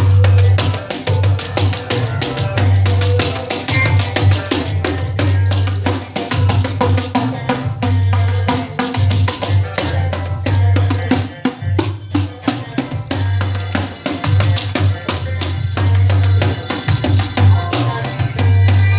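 A 12-inch nylon-headed pandeiro played in a steady rhythm of jingle and head strokes, along with a recorded song that has a pulsing bass line.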